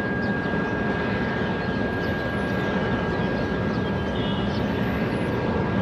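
Boeing 777-300ER jet engines running steadily as the airliner rolls along the runway on departure, a broad steady rumble with a thin high tone.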